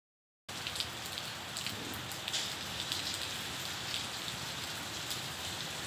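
Steady rain falling, with scattered drops pattering close by. It starts abruptly about half a second in.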